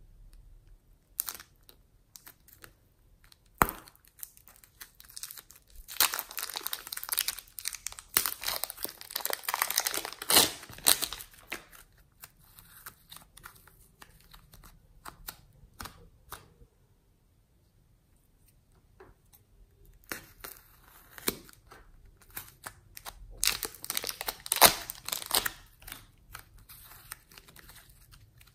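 Plastic piping bags of soft clay crinkling and crackling as fingers squeeze and work them, in two long spells with a brief near-silent pause between, and single clicks and soft tearing as the clay is pulled out.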